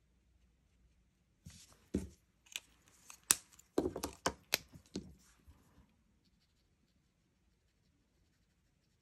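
Loose cardstock pieces rustling and sliding on a craft mat, with sharp clicks and taps of markers being picked up and set down, for a few seconds. After that comes faint scratching of a marker nib colouring on paper.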